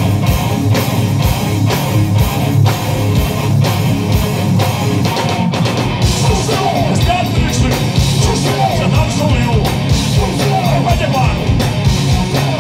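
Live rock band playing loud: distorted electric guitars and bass over a steady drum beat. A voice sings into the microphone from about halfway through.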